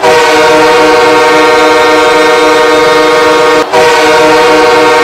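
Loud horn blast of several steady tones sounding together. It starts abruptly, breaks off for a moment about three and a half seconds in, then carries on.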